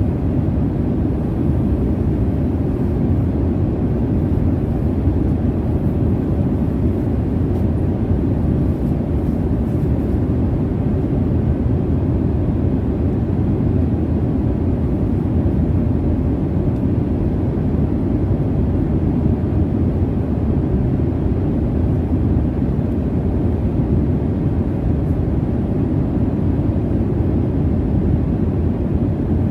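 Steady low rumble of jet engines and airflow as heard inside an airliner cabin in flight, even throughout with no distinct events.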